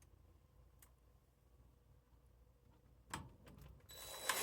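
Near silence for about three seconds, then a click, and near the end a cordless screw gun's motor starts up with a rising whine as it drives a screw home.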